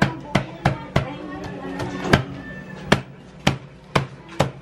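Lechon being chopped with a cleaver or heavy knife: sharp, irregular chopping strikes, roughly two a second.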